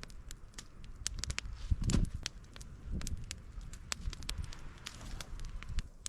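Campfire crackling, with irregular sharp pops throughout and a dull low rumble of movement about two seconds in.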